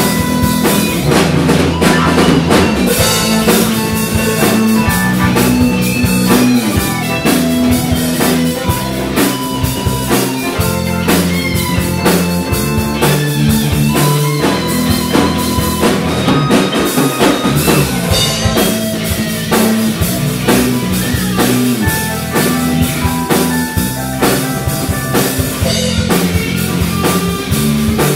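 Live rock band playing: drum kit, electric guitar, bass guitar and keyboard, loud and continuous with a steady drum beat.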